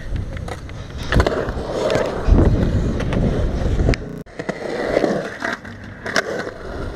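Skateboard rolling on concrete with a low rumble, and sharp clacks of the board and trucks knocking against the ramp's edge. The rumble breaks off suddenly about four seconds in, and a second ride starts with more rumbling and clacks.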